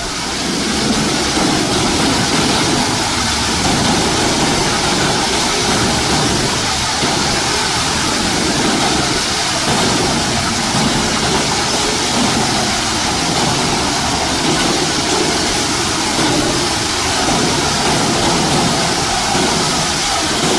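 Large industrial wood shredder running and grinding wood, a dense, steady, loud noise.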